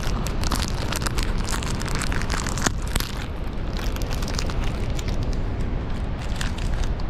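A snack-bar wrapper crinkling and tearing as it is opened, with many small crackles that die away near the end, over the steady rushing roar of a large waterfall.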